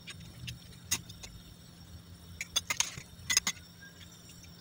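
Faint kitchen handling noises: a few light clicks and taps, most of them in a cluster about two and a half to three and a half seconds in, over a low steady hum.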